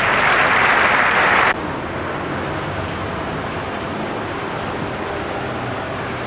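A loud rushing noise that cuts off abruptly about a second and a half in, then steady street traffic noise from cars driving on a wet road.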